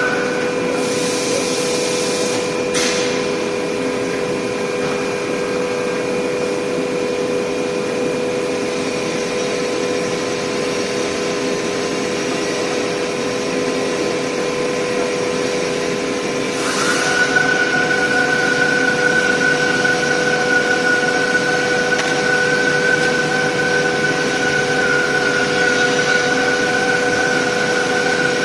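Hydraulic press brake running: a steady machine hum made of several fixed tones over a noisy haze, with one sharp click about 3 seconds in. About 17 seconds in, a high steady whine comes on and the sound gets a little louder.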